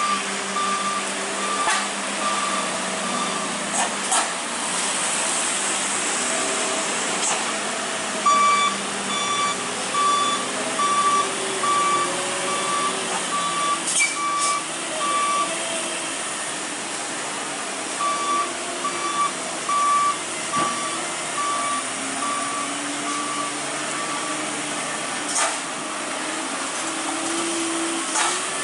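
A truck's electronic reversing beeper sounds evenly about one and a half times a second, in three runs separated by pauses, over the low labouring of heavily loaded diesel trucks climbing a hairpin. A steady hiss of rain runs underneath, and a few short sharp hisses break in.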